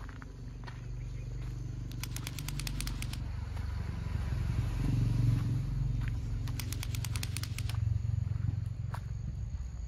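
Outdoor hillside ambience with a steady low rumble, broken twice by about a second of rapid, even clicking at some ten pulses a second, once about two seconds in and again near seven seconds, like a calling cricket.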